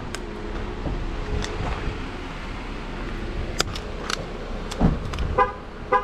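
Jeep Wrangler door clicks and a door thump, followed by a run of short beeps about half a second apart near the end.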